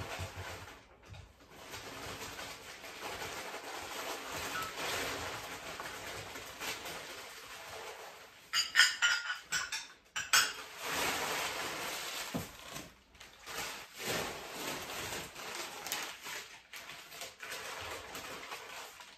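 Crumpled packing paper rustling as glassware and china are unwrapped and set down. About halfway through comes a quick run of sharp clinks of glass or china knocking together, the loudest part.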